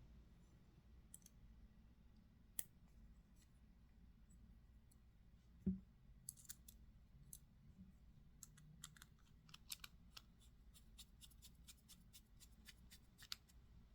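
Faint light clicks of small metal parts of the Kizer Hyper folding knife and a small driver being handled during reassembly, with a quicker run of little clicks in the second half and one soft bump just before the middle.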